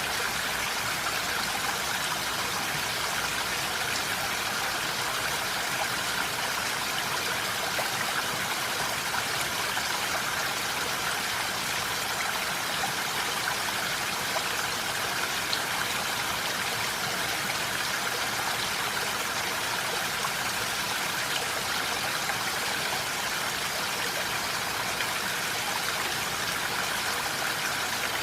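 Steady rain falling in a forest, an even hiss of many drops with no single drop standing out.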